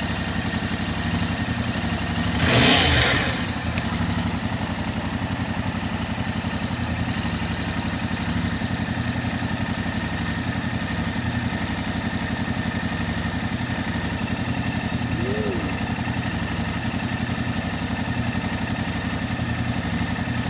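2022 Yamaha R7's parallel-twin engine idling steadily while warming up, freshly filled with Amsoil Metric 10W-40 after an oil and filter change. A brief loud rush of noise cuts across it about two and a half seconds in.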